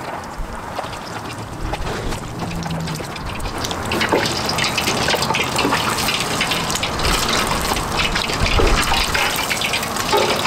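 Panko-breaded cream cheese sticks deep-frying in a pot of hot oil: the oil sizzles and crackles steadily, louder from about four seconds in.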